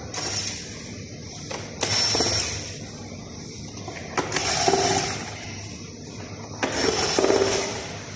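Power screwdriver running in short bursts of a second or two, about four times, backing screws out of a robot vacuum's plastic housing.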